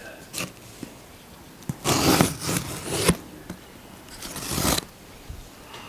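A cardboard shipping box being opened by hand: two long tearing, scraping noises about two and four seconds in, with a few small clicks and rustles between them.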